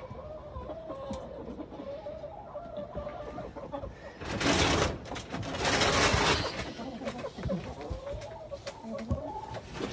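Hens clucking in a low, wavering murmur, broken by two loud bursts of noise about four and six seconds in.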